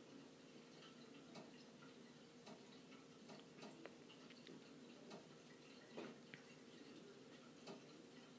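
Near silence: faint room tone with a few soft, irregular clicks scattered through it.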